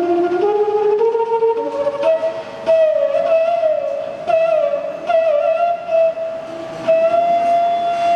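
Bamboo bansuri (side-blown flute) playing a slow melody, sliding and bending between notes, then settling into one long held note near the end. A lower tone climbs in steps beneath it in the first couple of seconds.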